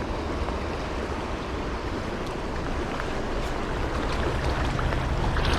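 Steady rush of a mountain creek's flowing water close to the microphone, with a low rumble underneath, growing slightly louder toward the end.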